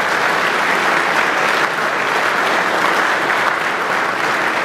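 Large seated audience applauding, a dense and steady clapping.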